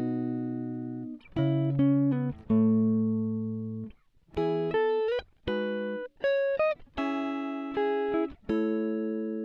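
Background music: a plucked guitar playing chords and short phrases, each struck note dying away before the next.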